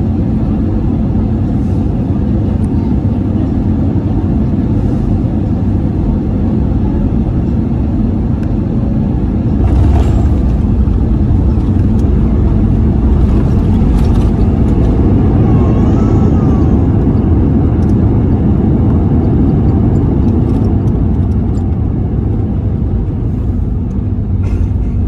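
Airbus A320neo cabin noise on landing: steady low rumble of engines and airflow, a sharp knock about ten seconds in as the wheels touch down, then a louder rumble through the roll-out for some ten seconds before it eases.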